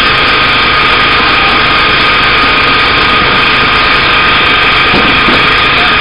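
Pole-and-line tuna boat's engine and water-spray pumps running: a loud, steady drone with a constant whine, over a hiss of water spraying from the sprinkler jets along the rail.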